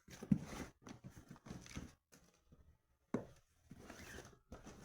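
Handling noises: irregular knocks and rustling, with a sharp knock near the start and another just after the middle, and about a second of quiet between them.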